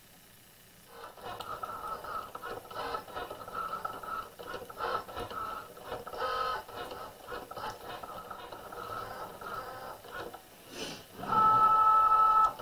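Cricut Joy cutting machine drawing with its foil transfer tool, its motors whirring in uneven spurts as the carriage and mat shift back and forth, starting about a second in. Near the end comes a louder steady whine lasting about a second.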